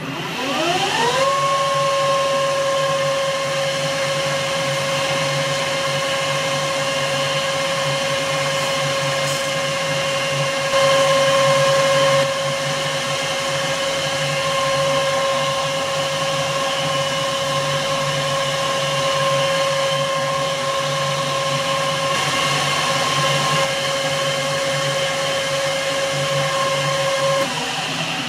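Metal lathe spinning up, its whine rising in pitch over about a second, then running steadily with a clear whine over a low hum. There is a briefly louder stretch about eleven seconds in, and the whine stops near the end.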